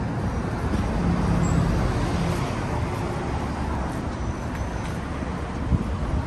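Road traffic on a busy street: a vehicle drives past, loudest about a second or two in, over a steady background rumble. A short sharp knock sounds near the end.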